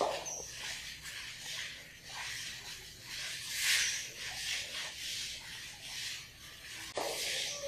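A felt board duster is being wiped over a chalkboard to erase chalk writing, in repeated swishing strokes roughly once a second. There is a light knock just before the end.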